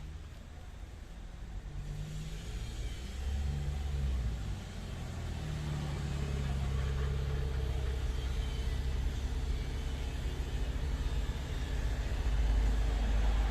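A motor vehicle's engine running with a low rumble, growing louder and loudest near the end.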